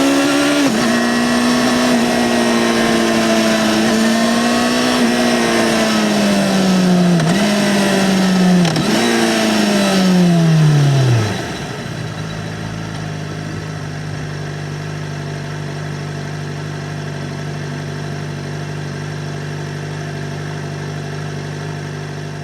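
2009 Yamaha XJ6-N's 600 cc inline-four on its stock exhaust, running under way with the pitch of its note wandering, then twice dropping and jumping back up as with downshifts. The note falls away as the revs drop, and from about halfway through the engine idles steadily and more quietly.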